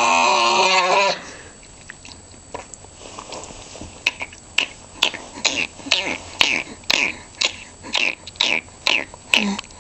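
A man's drawn-out vocal noise, pitched and gliding, cuts off about a second in. From about four seconds in comes a run of short, sharp, animal-like vocal yips, about two a second, each dropping slightly in pitch.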